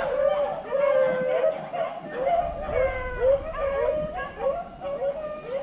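A pack of beagles baying, many overlapping drawn-out howling calls, in full cry as they run a rabbit.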